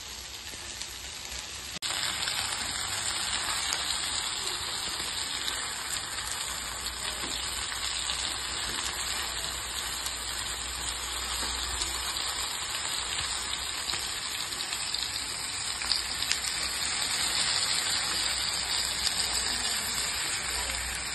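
Masala-coated mugudu pieces frying in hot oil on a banana leaf in a pan, a steady sizzle that gets louder about two seconds in.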